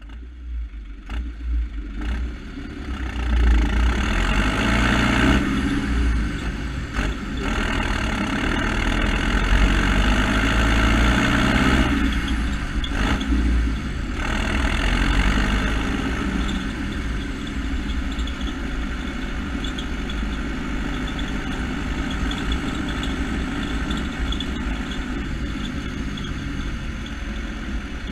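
A vehicle engine accelerating, its pitch climbing with brief drops at what sound like gear changes, then running at a steadier speed through the second half, under a constant rush of wind or road noise.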